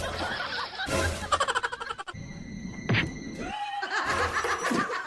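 Music with people laughing and snickering, changing abruptly as short clips cut into one another.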